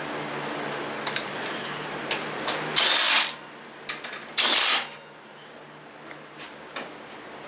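Socket tool running bolts on a small lawnmower engine's housing: scattered metallic clicks and two short, loud bursts of about half a second each, a second and a half apart.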